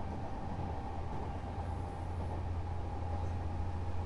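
Odakyu 8000 series motor car DeHa 8116, refitted with IGBT-VVVF traction control, running along the line. There is a steady low rumble and a thin whine held at one pitch under an even hiss.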